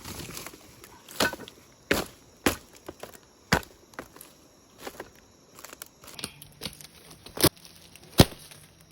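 A blade chopping bamboo: sharp, irregular strokes, roughly one a second.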